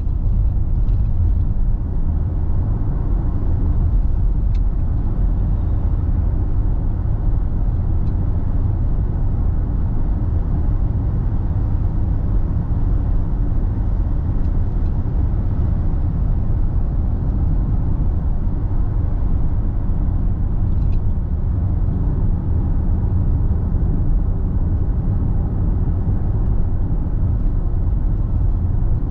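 A car driving steadily at road speed: an even, low drone of tyre and engine noise with no change in pitch.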